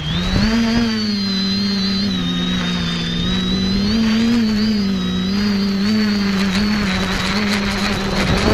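Electric motors and propellers of an FPV quadcopter in flight, a steady buzzing hum whose pitch wavers up and down as the throttle changes.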